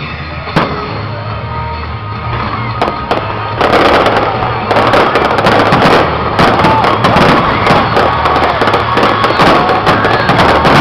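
Aerial fireworks display: a single sharp bang about half a second in, then from about three and a half seconds a dense barrage of shells bursting in rapid succession, finale-style.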